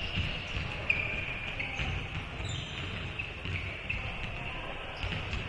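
Basketball dribbled on a hardwood gym floor during play, a run of dull thuds with short squeaks over them and one sharper hit about a second in.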